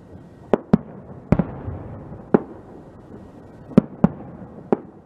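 Fireworks going off: about seven sharp bangs at uneven intervals, with a continuous noisy haze between them.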